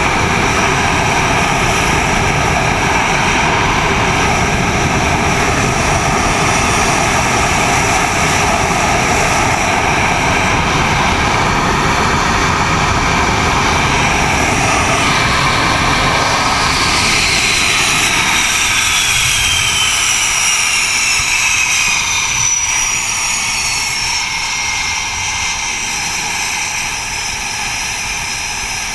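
F/A-18 jet engines running at high power, a loud steady roar. About eighteen seconds in, the deep rumble drops away and a whine falls in pitch over several seconds as a jet moves off.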